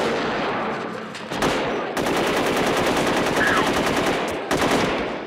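Automatic gunfire in long, rapid bursts. The steadiest burst, about a dozen shots a second, runs from about two seconds in until shortly before the end.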